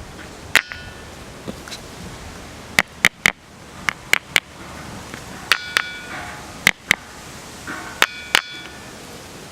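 A small stone striking the gabbro boulder called Kūkai's bell stone, about a dozen sharp blows in pairs and threes. Some blows ring briefly with a high metallic tone, heard near the start, at about the middle and near the end; the others are dry clicks with no ring.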